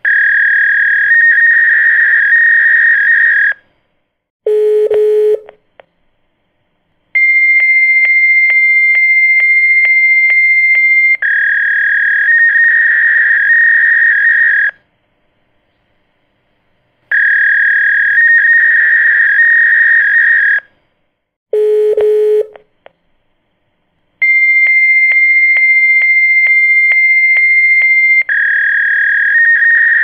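Telephone signal tones: long, loud, high-pitched steady beeps with a fine crackling texture, each held for a few seconds and separated by short gaps, and twice a brief lower tone about a second long. The sequence repeats about every 17 seconds.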